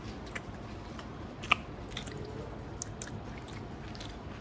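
A person chewing a mouthful of sandwich: faint mouth noises with scattered small clicks, one sharper about a second and a half in.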